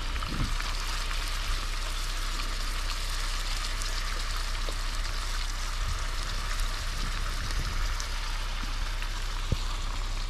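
Meat sizzling steadily in a frying pan on a portable camp stove, with a few light clicks of a fork stirring it in the pan.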